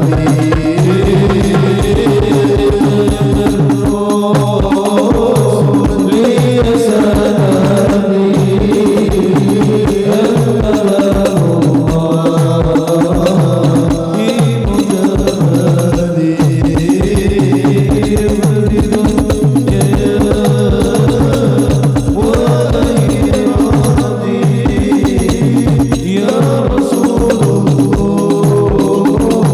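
Devotional sholawat music: drums beating a fast, steady rhythm under a gliding melody line.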